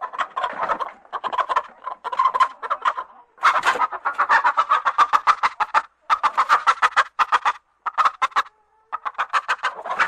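Bird clucking in fast runs of pulses, about nine a second, broken by short pauses.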